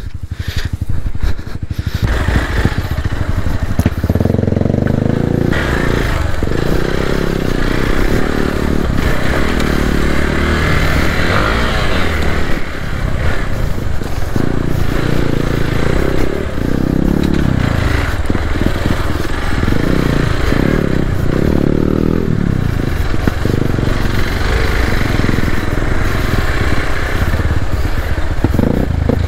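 Hero Xpulse 200 4V motorcycle's single-cylinder engine running while riding, its speed rising and falling with the throttle.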